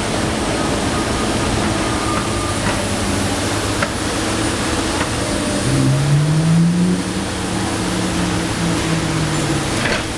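Diesel engine of a Komatsu PC290 NLC excavator running steadily during demolition work. About six seconds in, an engine tone rises in pitch and holds for a few seconds before dropping away, and there are a couple of light knocks.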